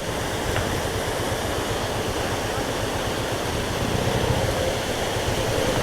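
Steady rushing of a waterfall's falling water, an even hiss-like noise with a low rumble underneath.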